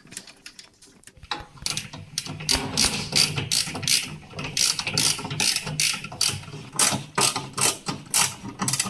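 A screwdriver driving screws into the fridge's plastic thermostat housing: a quick run of clicks that starts about a second in, over a low steady hum.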